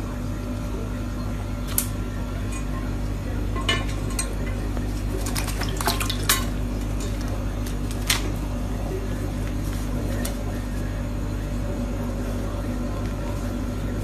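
Steady low hum with scattered sharp clinks of something hard, several of them bunched together about five to six seconds in.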